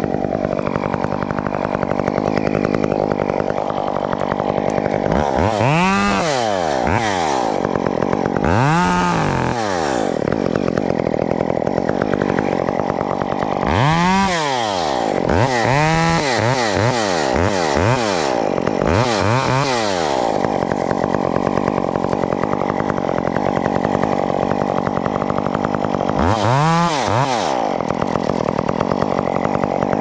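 Chainsaw idling steadily and revved up and back down about six times, each rev a short rise and fall in pitch.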